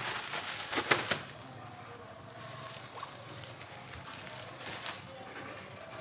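Water splashing as a landing net is worked through a small concrete catfish pond, a cluster of sharp splashes in the first second or so and a shorter one near five seconds.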